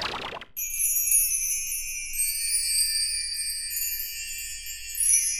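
Music of jingling bells and chimes that starts abruptly about half a second in, as a steady high shimmer.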